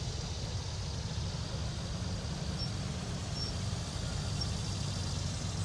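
Steady low rumble of outdoor street noise, with a few short, faint high chirps in the middle.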